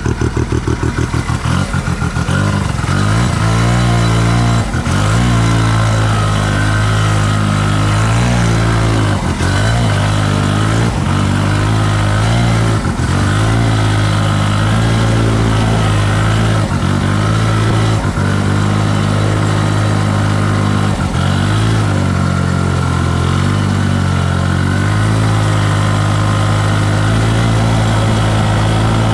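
Wankel 303 rotary engine of a 1971 Arctic Cat Panther snowmobile, ticking over in even pulses at idle, then revving up about a second in and running steadily under way. Every few seconds its pitch dips briefly and recovers as the throttle is eased and reapplied.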